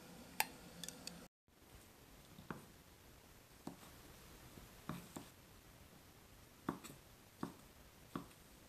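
Kitchen knife chopping soft fried cakes on a wooden cutting board: about eight separate knocks, roughly one a second. Before that, in the first second, come a few sharp clicks of a utensil against a stainless pan.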